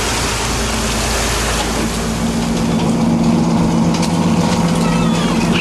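Fishing boat's engine running steadily under rushing wind and water noise; the engine's low hum comes forward about two seconds in as the rushing fades. A few short high gull calls near the end.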